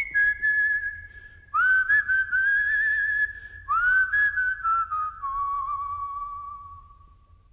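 A slow tune whistled on long held notes with a wavering pitch, two of them slid up into from below. The melody steps lower and fades out near the end.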